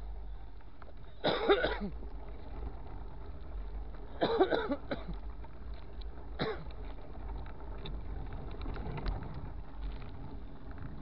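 A man coughing and clearing his throat in three short bursts, about one, four and six seconds in, over a low steady rumble.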